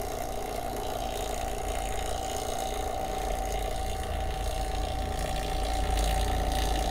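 Electric A/C vacuum pump running with a steady hum and a constant whine, growing a little louder in the second half.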